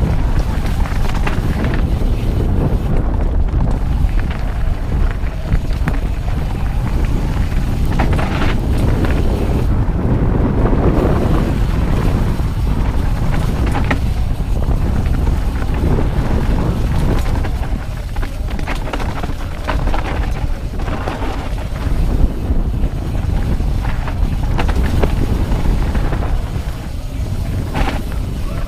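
Wind rumbling on a GoPro's microphone as a mountain bike descends a dirt singletrack, with the tyres rolling over dirt and the bike rattling and knocking over bumps throughout.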